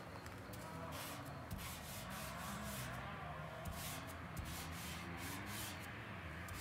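Homemade graffiti mop's felt tip rubbing across galvanized sheet metal in repeated drawing strokes, over a low steady hum.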